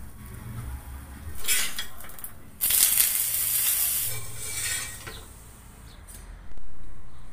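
Chilka roti batter sizzling on a hot tawa, in several short hissing spells that start and stop abruptly, the loudest starting suddenly about two and a half seconds in. A low rumble near the end.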